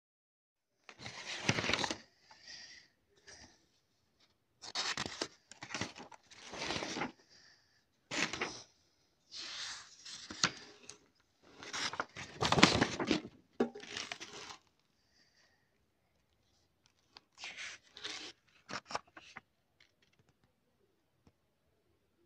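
Paper rustling and scraping in a string of short, uneven bursts: the pages of a spiral-bound sketchbook being handled and turned. The bursts come thickest in the first fifteen seconds, with a few more a little later.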